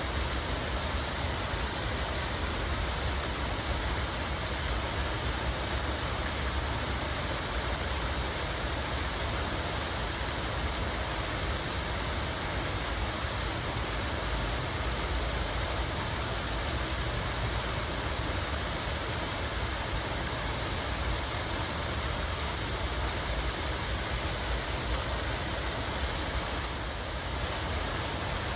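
Steady rush of running water, even and unbroken, over a low rumble.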